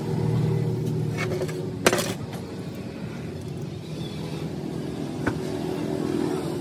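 A steady low engine rumble runs under the handling of hydraulic-jack parts, with one sharp metallic clink about two seconds in and a fainter click a little after five seconds.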